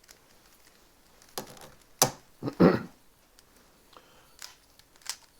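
A plastic Rubik's Cube being turned by hand: a few scattered sharp clicks and short scrapes, the loudest about two seconds in, with a short low sound just after it.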